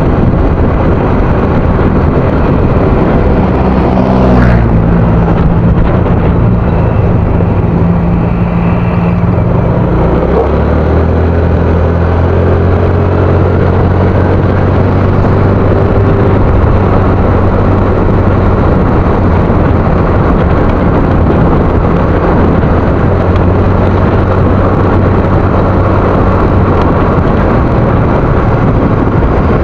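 Motor scooter engine running steadily under way, with wind and road noise on the microphone. The engine pitch shifts around 4 seconds in and again about 10 seconds in as the throttle changes.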